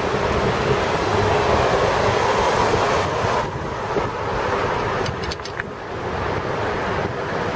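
Wind rushing over the microphone mixed with the steady noise of passing car traffic, recorded while moving along a street. It eases a little about halfway through, and a few brief sharp clicks come just after five seconds in.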